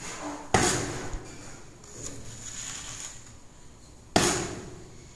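Two sharp knocks about three and a half seconds apart, each ringing out briefly, from hard tiling tools being knocked or set down while laying ceramic floor tile, with faint handling noise between them.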